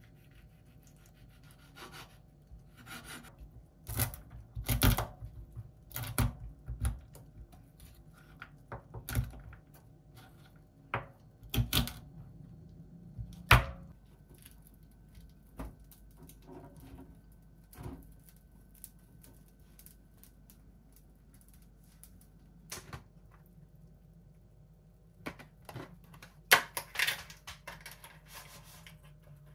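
Irregular kitchen-prep knocks and clicks: a knife cutting fresh figs and tapping on a wooden cutting board, then scattered clinks and taps as bread slices are laid on a wire toasting rack and a ceramic plate is set on the counter. Under them runs a faint steady low hum.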